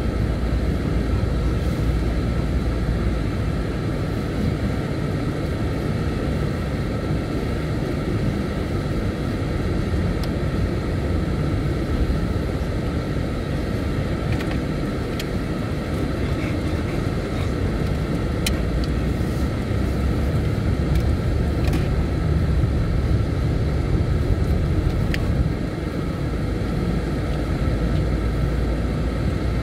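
Steady low rumble of a moving road vehicle, engine and tyre noise running evenly, with a few faint clicks.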